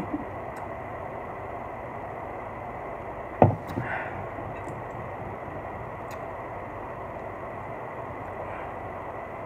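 A soda can set down on the tabletop with a single sharp knock about three and a half seconds in, over a steady background hum.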